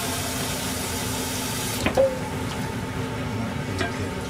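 Kitchen tap running water into a metal pan at a stainless-steel sink, shutting off about two seconds in. It is followed by a sharp knock with a short ring, and a lighter click near the end.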